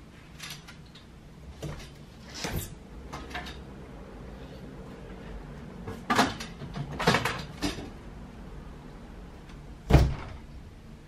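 A series of knocks and clacks from household handling: a metal folding clothes drying rack being moved and a door being opened and shut, with the loudest clatter in a cluster midway and one heavy thump near the end.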